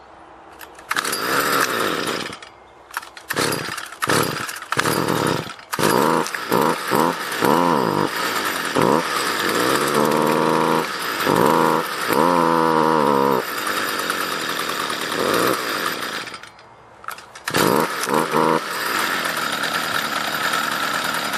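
Stihl FS55R two-stroke string trimmer engine pull-started about a second in, then revved in short bursts whose pitch climbs and falls back. It falls quiet briefly twice before running on. It bogs down each time the throttle is opened, which the owner suspects is a spark arrester screen clogged with carbon.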